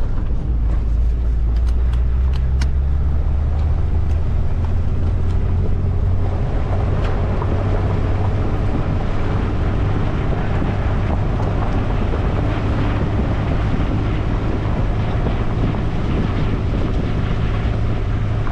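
A vehicle engine running steadily at an even speed, with a constant low hum and a few faint clicks in the first few seconds.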